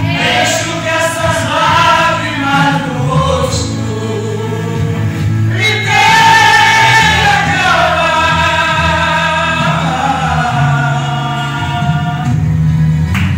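A man singing a gospel song through a microphone and PA, holding long notes, over sustained keyboard accompaniment.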